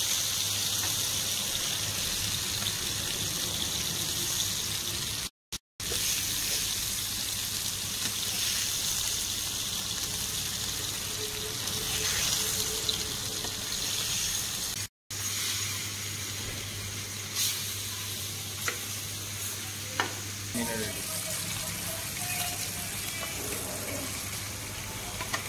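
Masala-coated fish sizzling steadily as it shallow-fries in oil on a flat tawa pan, with a metal spatula now and then scraping and tapping the pan in the second half. The sound cuts out briefly twice.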